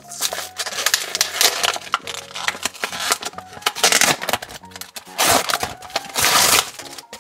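Clear plastic blister packaging crackling and crinkling as a toy five-pack is torn open by hand, the cardboard backing peeling away from the plastic. The crackling comes in irregular bouts, loudest about four seconds in and again from about five to almost seven seconds in.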